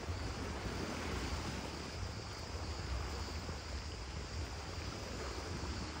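Wind on the microphone, a steady low rumble, over the wash of small sea waves lapping against rocks.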